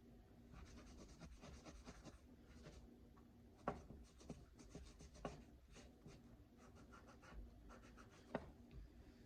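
Faint, quick scratchy strokes of a Glock pistol barrel being scrubbed by hand to strip its black finish after a vinegar soak, with a few sharper clicks, the loudest about a third of the way in and near the end.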